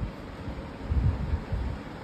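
Low rumbling buffeting on the phone's microphone, swelling about a second in, over a faint steady hiss.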